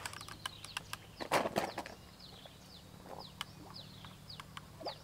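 Faint, quick series of short, high, falling chirps from small birds, repeating every few tenths of a second, over scattered light clicks. A brief louder noisy burst comes about a second and a half in.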